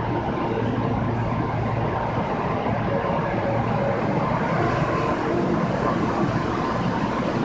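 Osaka Municipal Subway 22 series train standing with its doors open: a steady hum from its onboard equipment running while it waits, with a low drone and a few held tones over it.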